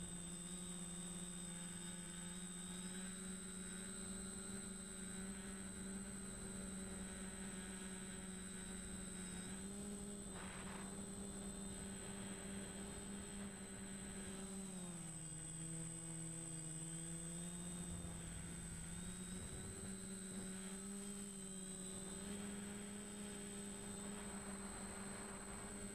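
DJI Flamewheel F450 quadcopter's motors and propellers humming steadily, heard from the camera mounted on it. The pitch drops for a few seconds a little past the middle, then rises back to where it was.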